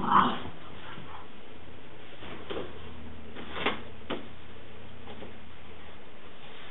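A French bulldog gives one short bark right at the start, followed by a few faint knocks as hollow foam puzzle cubes are handled, over a steady background hiss.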